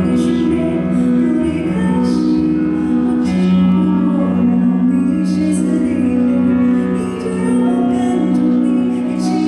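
A woman singing a slow, gentle song into a microphone over musical accompaniment, holding long notes.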